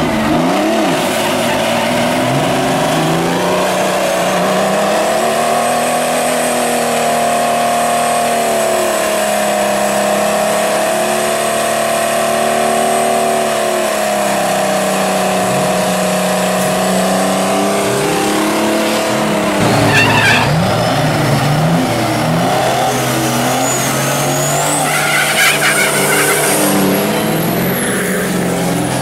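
Drag racing truck engine running hard at the strip, its note wavering up and down as it is revved, with a thin high whine above it. About twenty seconds in the note drops, and a high rising whistle follows.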